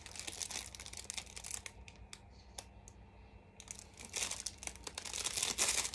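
Packaging crinkling and rustling as the next item is unwrapped by hand, in busy irregular crackles with a short quieter pause in the middle.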